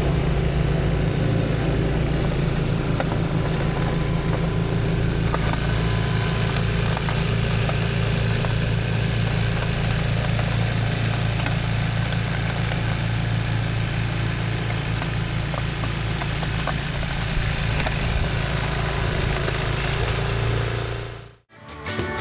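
An engine running steadily at a constant speed, cutting off suddenly near the end.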